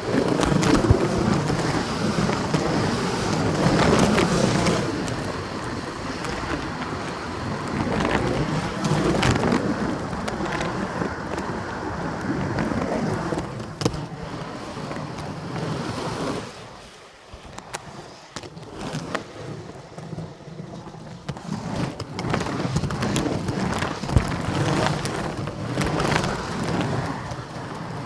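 Roller skate wheels rolling on a wooden skating-rink floor: a steady rumble with scattered sharp clicks and knocks, quieter for a few seconds past the middle before picking up again.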